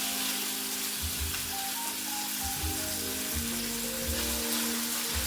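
Chicken thighs sizzling steadily in hot avocado oil in a pan.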